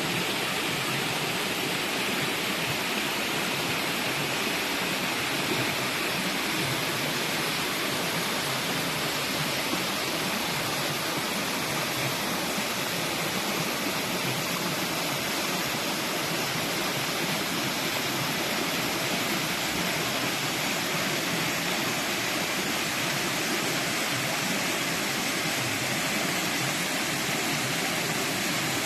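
Steady rush of water in a mountain valley stream, a continuous even roar of cascading water.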